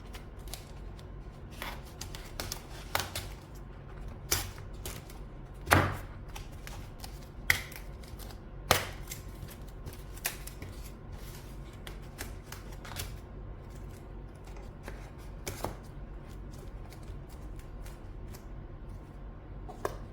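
About a dozen irregular clicks and knocks of hard objects being handled, the loudest about six seconds in, over a steady low hum.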